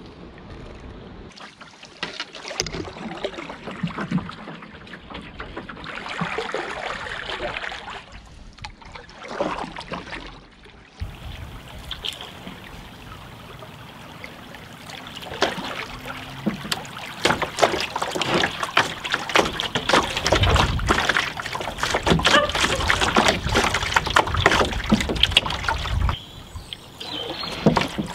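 Canoe paddle dipping and pulling through river water, with water lapping and rippling against the wooden hull of a cedar strip canoe. From about halfway the water gets busier: a dense run of small splashes and ripples.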